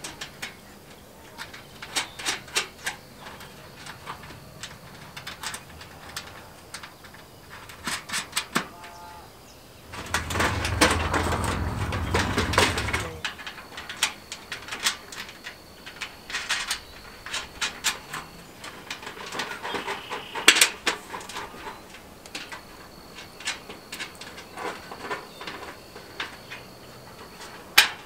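Corrugated metal raised-bed panels clanking and rattling as they are handled, fitted and bolted together, with many small metallic clicks and knocks. About ten seconds in there is a louder, rougher noise lasting roughly three seconds.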